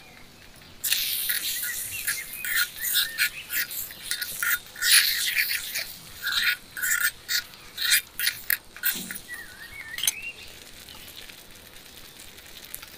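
Small spoon stirring and mashing a wet, sticky chana dal and jaggery filling in a tiny iron kadai: a quick, irregular run of scraping and squelching strokes that starts about a second in and stops near three-quarters through. A few bird chirps follow.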